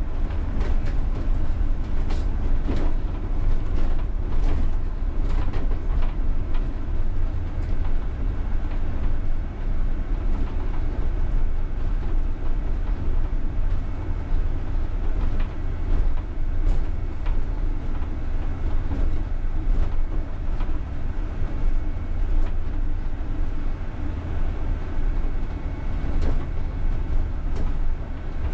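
UTTZ-6241.01 (MAZ-203T) trolleybus driving along, heard from the driver's cab: a steady deep rumble of running gear and tyres, with scattered knocks and rattles, most of them in the first several seconds.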